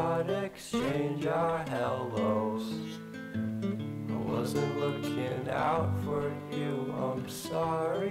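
Background music, mainly acoustic guitar, with a melody that slides up and down in pitch.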